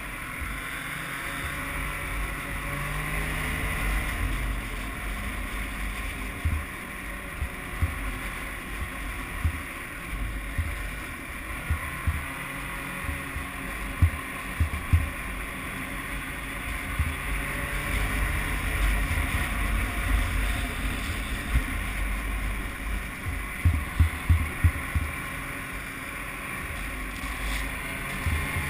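Snowmobile engine running steadily under way, with scattered short low thumps.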